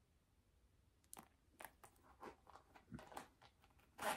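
Faint, scattered clicks and rustles of small handbag accessories being handled: a coated-cotton coin case and the metal hardware of the bags. The sounds begin about a second in, and the loudest comes near the end.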